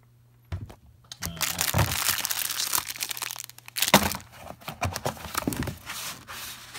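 Paper and packaging rustling and crinkling as the manual and paperwork are pulled out of a foam-lined plastic pistol case, with a sharp knock against the case about four seconds in.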